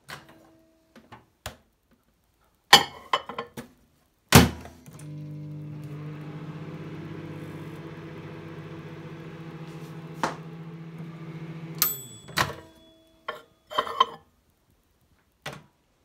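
Microwave oven heating a mug of tea, running with a steady hum for about seven seconds. Before it there are clicks, a clatter and a loud clunk; after it stops, more clunks and clicks.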